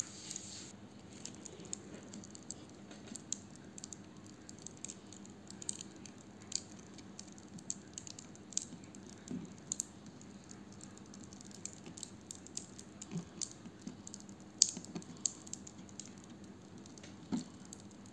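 Fingers pressing and handling a jelly fried-egg toy in a small plastic pan: faint scattered clicks, light taps and soft squishes, with a sharper click about two-thirds of the way through.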